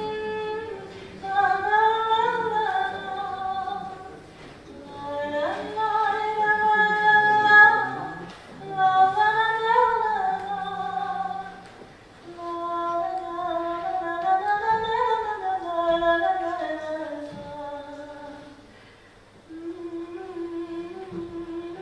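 A woman singing a slow melody in phrases of a few seconds, with long held notes that bend and glide between pitches.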